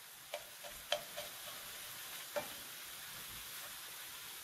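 Ground chicken, onion and water chestnuts sizzling in a hot nonstick frying pan as a spatula stirs them, with a few light knocks of the spatula against the pan in the first second and a half and one more about two and a half seconds in.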